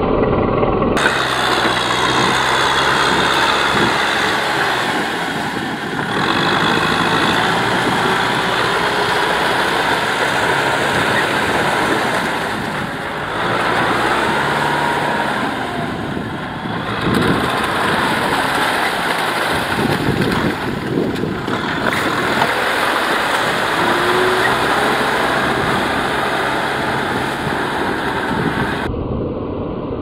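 Tractor engine running under load while the tractor pulls a disc plough through deep, wet mud, with the churning of mud and water mixed in. The sound dips and swells a few times.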